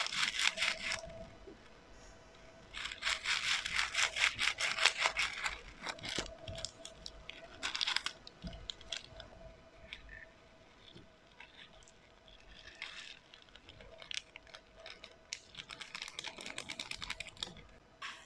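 Slime being squeezed and stretched by hand, crackling and popping in several bursts of fast clicks.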